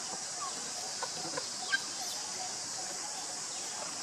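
Steady high-pitched insect drone, with a few short faint chirps and clicks scattered through the middle.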